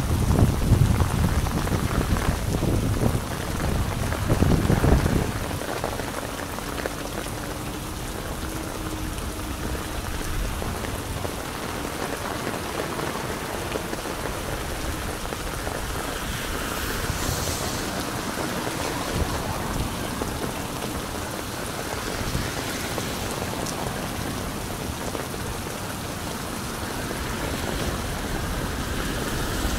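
Steady rain falling on a wet street and pattering on an umbrella overhead, with a louder low rumble for about the first five seconds.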